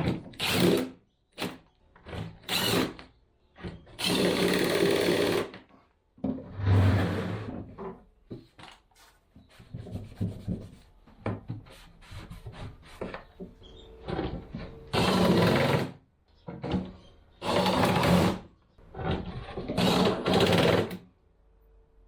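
Handheld power drill running in repeated bursts of one to two seconds, stopping and starting between them, with a few quick short bursts near the start.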